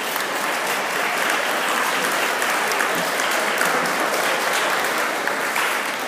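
Audience applauding in a gymnasium, a steady spatter of many hands clapping that tapers off near the end.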